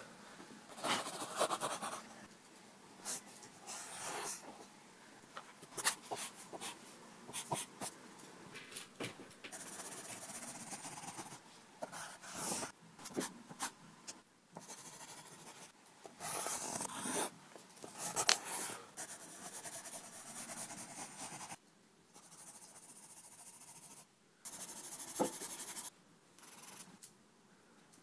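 Pencil scratching on paper in irregular strokes, some short and some lasting a second or two.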